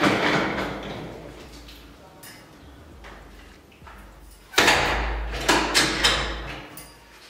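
Full-glass door being moved and shut: a sudden rush of noise as it swings at the start, then a loud bump about halfway followed by a few knocks and rattles as it closes.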